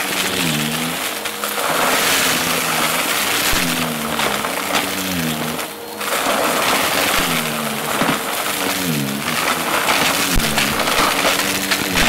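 Upright bagless vacuum cleaner running over a heap of small hard crushed debris on carpet, crunching and crackling as the pieces are sucked up in several surges with each forward push. Under it the motor hums steadily, with a lower tone that dips in pitch and recovers again and again.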